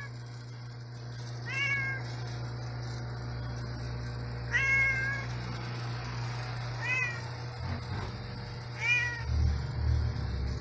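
Domestic tabby cat meowing for food: four short meows about two seconds apart, each rising and falling in pitch, the one near the middle held a little longer, over a steady low hum.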